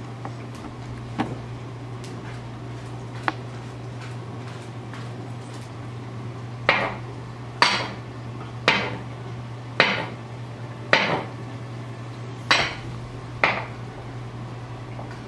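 Chef's knife chopping through banana slices onto a wooden cutting board: seven sharp knocks about a second apart, starting about halfway through, over a steady low hum.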